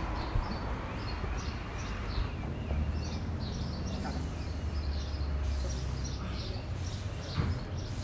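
Small birds chirping repeatedly over outdoor background noise, with a low rumble through the middle seconds. A stiff hand brush scrubs painted wall siding in a few short strokes.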